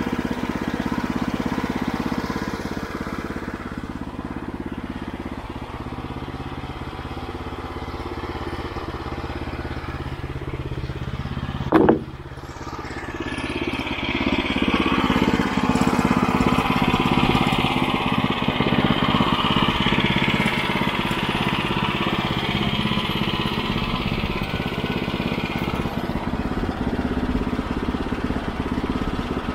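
Small gasoline engine of a bandsaw sawmill running steadily, with one brief, loud, sharp knock near the middle. After the knock the running sound gets louder and brighter.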